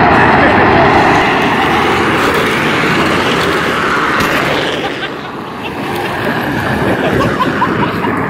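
Loud rolling rumble and rattle of Power Wheels ride-on toy cars' hard plastic wheels on asphalt as they coast downhill, easing a little about five seconds in.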